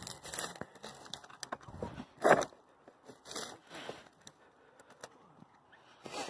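Footsteps crunching and scraping over rocks and dry grass, irregular, with a louder crunch about two seconds in.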